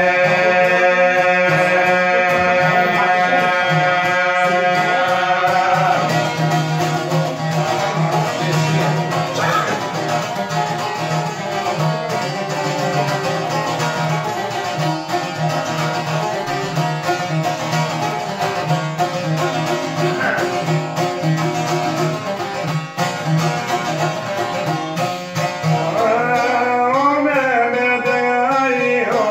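Men singing in the high-pitched Albanian kafaz style, accompanied by a long-necked plucked lute. A long sung note is held for about the first six seconds. Then the lute plays on over a steady pulsing bass note, and the voices come back near the end with a wavering, ornamented line.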